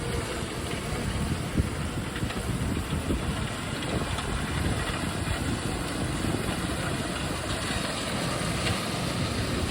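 Heavy diesel engine running steadily at a low, even idle.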